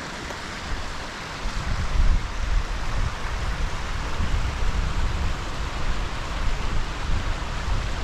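Steady rushing of a mountain river, with an irregular low rumble joining it about a second and a half in.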